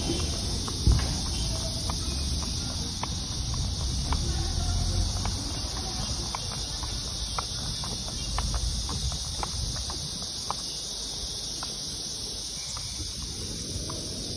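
Steady high-pitched drone of insects, with scattered light clicks and a low rumble that dies away after about ten seconds.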